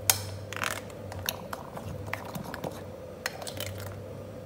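Hand squeezing and mixing durian flesh in a glass bowl: a run of sharp clicks and knocks against the glass, the loudest just after the start, with soft wet squishing.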